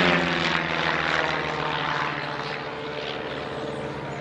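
Piston engines and propellers of Pitts Special aerobatic biplanes in a vertical climb: a steady droning hum that fades over the first two seconds or so as the aircraft pull away.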